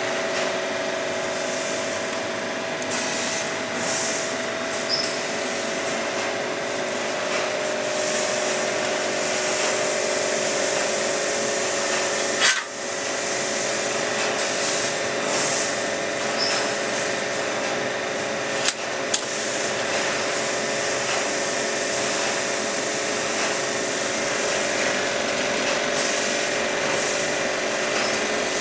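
Steady industrial machinery noise of a steel plant: a constant drone with several held tones over a wide hiss. A few sharp clicks cut through, one near the middle and two close together a few seconds later.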